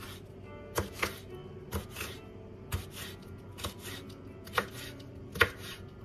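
A kitchen knife slicing red pepper into strips on a wooden cutting board, the blade knocking on the board about once a second, roughly eight cuts in all.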